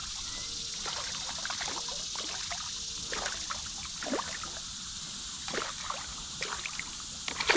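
Creek water running with a steady rush, with a few brief knocks over it about three, four, five and a half and seven seconds in.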